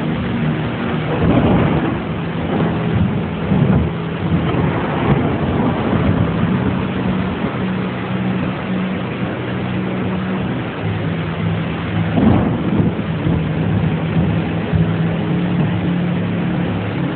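Steady rushing of floodwater running down a street, with a few louder surges and a low hum that comes and goes underneath.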